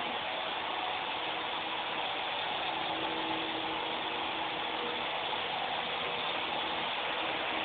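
Small indoor RC helicopter's electric motor and rotors whirring steadily in flight: an even whir with a faint constant hum.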